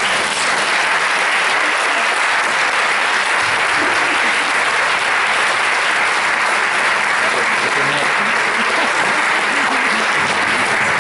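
Audience applauding steadily: dense, even clapping that starts just before and holds at a constant level.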